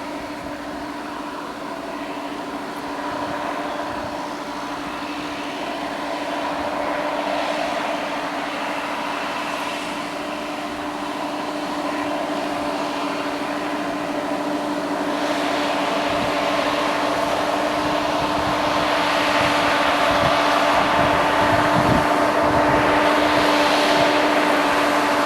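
Harvest machinery running steadily with a constant whine, growing gradually louder as it nears.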